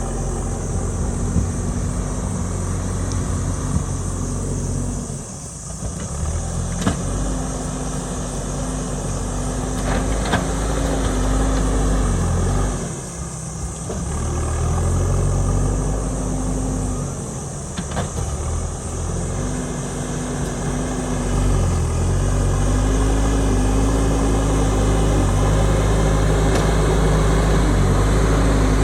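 JCB backhoe loader's diesel engine running under work, its revs rising and falling, with a few sharp knocks along the way.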